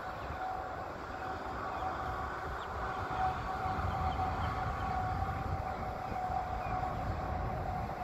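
Wind rumbling on the microphone over a steady hum.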